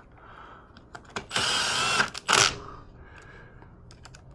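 Power drill/driver with an 8 mm socket running in two short bursts, about a second in and again briefly just after, driving in the fasteners that hold the carburetor on a Briggs & Stratton mower engine.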